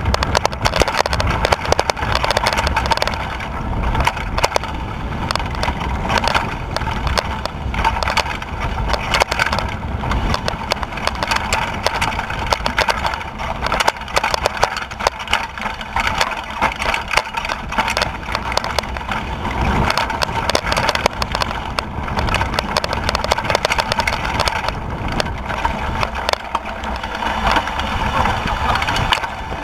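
Mountain bike rattling and clattering non-stop over a rough, rocky dirt trail on a descent, picked up by a camera mounted on the bike: dense rapid knocks from the bike and tyres on stones, over a low rumble.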